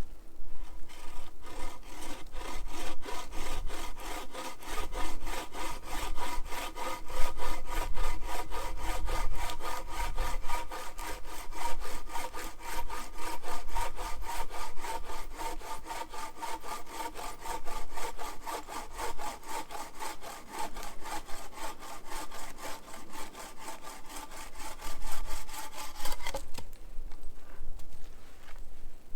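A hand saw cutting through wood in quick, steady back-and-forth strokes, about four a second, stopping a few seconds before the end.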